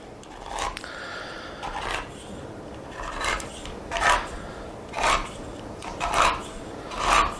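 Hand-held can opener cutting round the rim of a food can: a rasping, grinding crunch with each turn of the knob, about once a second.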